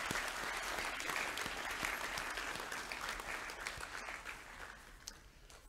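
An audience of students applauding, the clapping fading away in the last couple of seconds.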